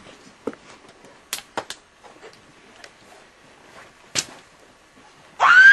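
A few scattered sharp clicks and knocks, then near the end a girl bursts into a loud, high scream that swoops down and back up in pitch.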